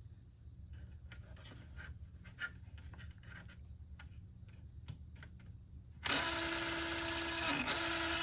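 Cassette data recorder mechanism: faint clicks at first, then about six seconds in the motor and tape transport start up, a loud steady whirring with a whine. The owner takes it for a fault, with something probably stuck or catching at the back of the mechanism.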